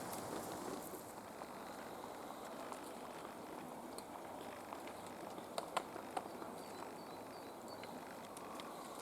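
Great spotted woodpecker tapping on wood: a few separate, irregular knocks rather than a fast drum roll, the loudest three close together about halfway through.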